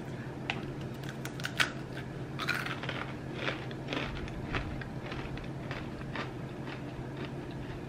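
Crisp crunching of a fried chakli, a rice-flour spiral snack, being bitten and chewed: irregular sharp crackles, the loudest about a second and a half in.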